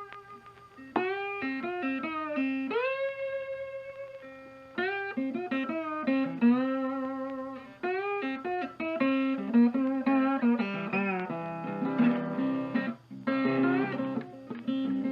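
Background music: a plucked, sliding guitar melody over a steady bass line, in a bluesy style.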